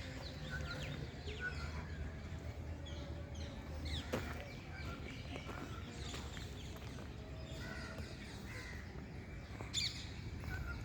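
Many birds chirping and calling at once, short overlapping calls throughout, with a louder call about four seconds in and another near the end, over a steady low background hum.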